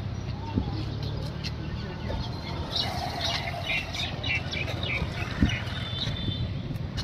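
Roadside ambience: a steady low traffic rumble, with a cluster of short high chirps about three seconds in and a few light clicks.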